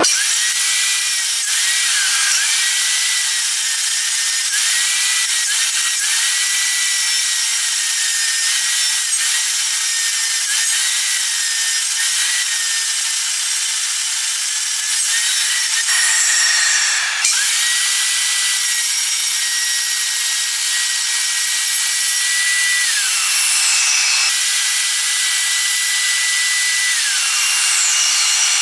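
A circular saw cuts along a spinning wooden blank on a drill-driven homemade lathe: a loud, steady high motor whine over the hiss of the blade chewing wood. The whine sags briefly again and again as the blade bites, then recovers. It falls away twice, about two-thirds of the way through and near the end, and picks up again each time.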